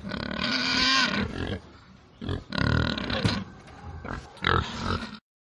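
Wild boar vocalising in three bouts, the last one near the end, and the sound stops abruptly.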